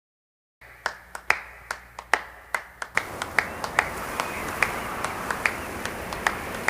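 A string of sharp snapping clicks, about two or three a second and unevenly spaced, with a hiss coming up about three seconds in.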